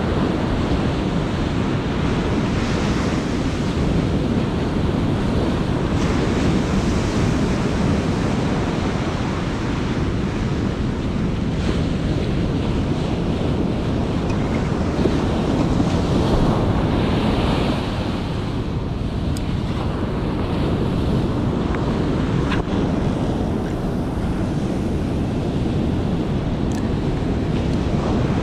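Ocean surf breaking and washing up a beach, a steady rushing wash that swells and eases, with wind buffeting the microphone.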